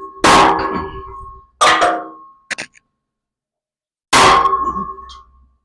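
Hammer blows on a steel tractor wheel rim and spokes: three sharp metal strikes, each ringing on for about a second, with a light double tap between the second and the third.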